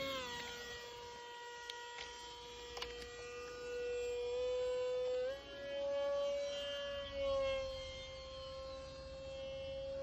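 HobbyZone AeroScout RC plane's electric motor and propeller whining steadily in flight at a distance, its pitch stepping up a little about halfway through and easing back down a few seconds later, with slight swells in loudness.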